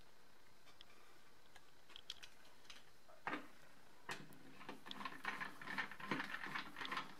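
Light clicks and small rattles of a plastic vacuum wall mount being shifted by hand and its screws adjusted with a screwdriver to bring it level. A few scattered clicks at first, then a quick run of them over the last couple of seconds.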